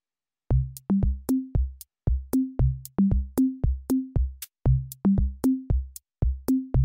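Electronic background music: a drum-machine beat with short, punchy bass notes stepping up in pitch in a repeating figure, starting about half a second in.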